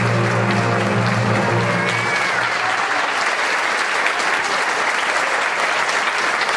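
Audience applauding, with the last held chord of the dance music fading out about two and a half seconds in.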